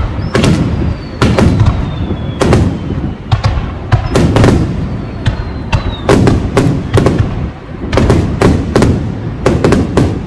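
Fireworks display: aerial shells bursting in a rapid, uneven string of loud bangs, often two or three within a second, over a continuous low rumble of echoes. Faint thin whistles slide down in pitch between the bangs a few times.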